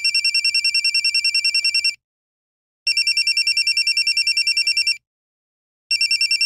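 Phone ringing with a classic telephone-bell ringtone: a rapid trill in bursts of about two seconds, with about a second of silence between them, three rings in all. The ringing is an incoming call that goes unanswered.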